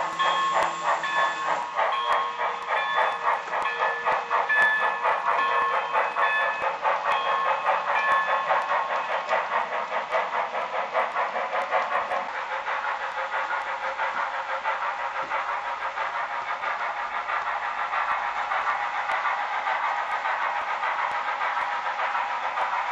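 Sound-equipped HO scale Proto 2000 model of a Canadian Pacific 0-8-0 steam switcher: rapid, even steam-exhaust chuffing from the locomotive's small onboard speaker as it pulls freight cars. A repeating higher ringing tone sounds over it for roughly the first third, then stops.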